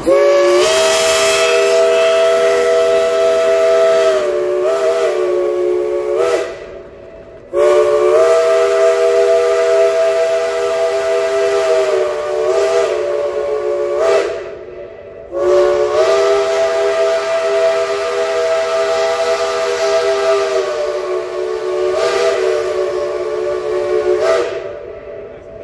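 Chime steam whistle on a Shay geared steam locomotive, blown in three long blasts of several seconds each with short breaks between, over a hiss of steam. The pitch wavers briefly within each blast.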